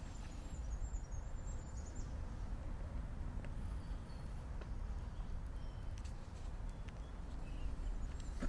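Mitsubishi Lancer Evolution VI's turbocharged 4G63 inline-four idling steadily after a cold start, with a few faint clicks.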